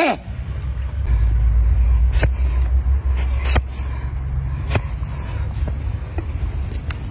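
Sharp cracks of a heavy trimming blade cutting through a donkey's overgrown hoof wall against a rubber tyre block, four or so spaced a second or more apart. Under them runs a steady low rumble, loudest in the first half.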